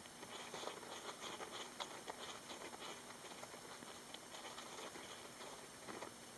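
Roborovski dwarf hamster digging in sand: a quick, faint run of scratching and pattering as sand is scraped and flung, busiest in the first three seconds, with a few more scrapes near the end.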